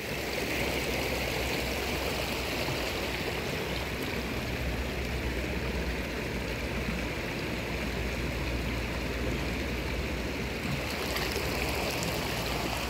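Shallow river water flowing over stones: a steady, even rush.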